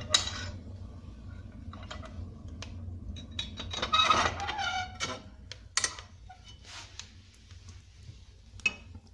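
Wood fire crackling in a fireplace, scattered sharp clicks over a low steady hum, with a metallic clink at the start. A brief voice-like sound about four seconds in is the loudest moment.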